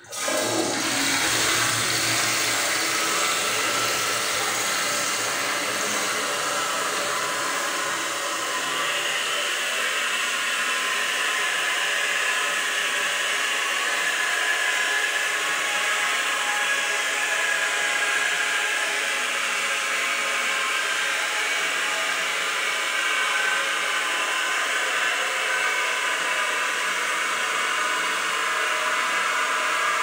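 Toilet flush with an echo effect applied, the rushing water smeared into one steady rush. It starts suddenly and holds at an even level.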